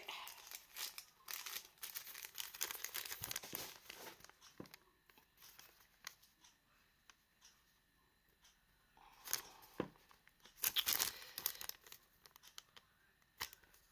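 A thin paper till receipt crinkling and rustling as it is unfolded and handled. Dense crackling for the first few seconds, quieter in the middle, then more bursts of rustling about nine to eleven seconds in and once more near the end.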